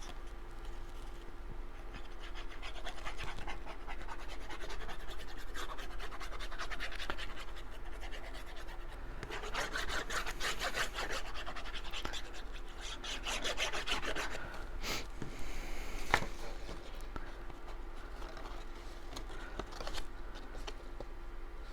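Cardstock and paper being handled, scratching and rubbing against each other and the work surface as pieces are glued and pressed down, louder in two stretches midway, with a sharp click about three quarters of the way in. A faint steady hum runs underneath.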